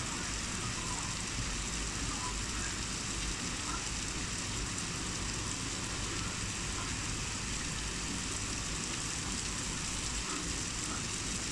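Heavy rain falling steadily: an even, unbroken hiss of a downpour.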